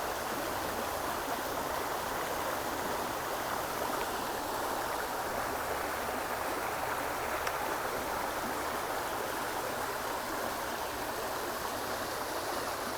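River current flowing steadily, a shallow trout stream running past the wading angler.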